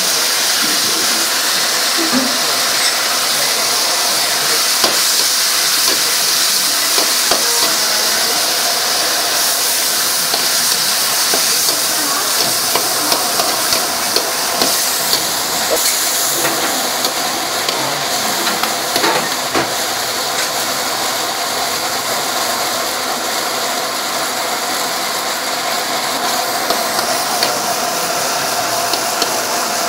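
Steady hiss of meat and vegetables in sauce sizzling in a steel wok, with a metal ladle stirring and now and then clinking against the pan.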